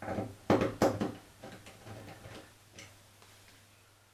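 Irregular clicks and light knocks of a replacement washing-machine door hinge and hand tools being handled and lined up against the machine. They are loudest and closest together in the first second, then sparser, and die away after about three seconds.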